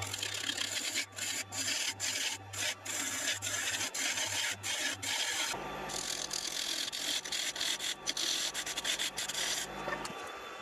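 Turning tool cutting a spinning wood blank on a lathe: a continuous shearing hiss, broken by many brief gaps as the tool lifts, over the lathe's low hum. The hum shifts about halfway through, and the cutting stops shortly before the end.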